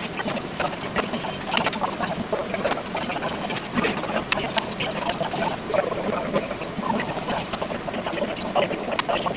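Plastic rice paddle scooping cooked rice out of a large stainless-steel rice cooker and packing it into plastic bento boxes: a busy run of irregular soft clicks, taps and scrapes.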